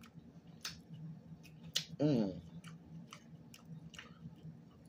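Irregular small clicks and wet smacks of someone eating green-lipped mussels by hand: mussel shells handled and chewing mouth sounds. About two seconds in comes a brief voiced hum from the eater, falling in pitch.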